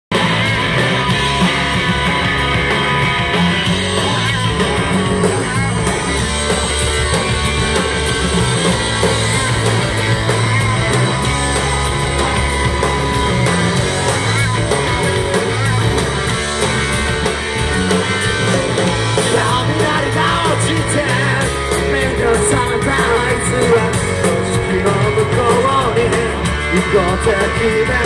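Live rock band playing loud: drums, electric guitar and bass, with a singer's voice standing out more clearly in the last third.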